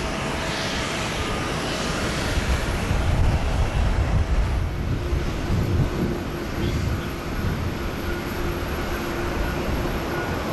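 Jet aircraft engines: a steady rush of noise with a low rumble that swells a few seconds in. A faint steady whine joins about halfway through.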